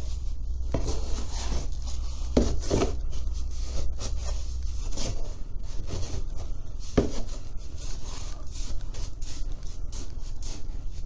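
Cat litter being scraped and sifted while a litter box is cleaned: a run of short, irregular rasping scrapes.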